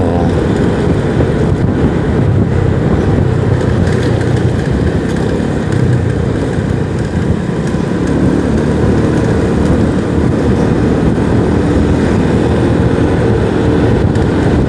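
Motorcycle riding along the road, its engine running steadily under heavy wind rush on the rider's microphone.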